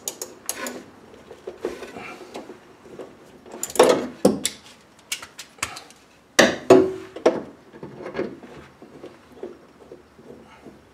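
Socket wrench working rusty exhaust bracket nuts under a car: irregular metal clicks and knocks of the tool, with louder metal clanks about four seconds and six and a half seconds in, the second ringing briefly.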